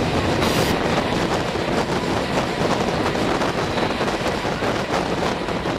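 Passenger train running through a rail tunnel: a steady, dense rush of wheel, rail and air noise, with wind on the microphone.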